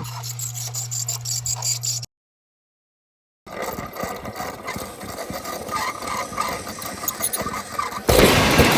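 Music stops about two seconds in, followed by a moment of dead silence. Then comes a steady mechanical running noise with irregular clicks, and near the end a sudden, much louder noise.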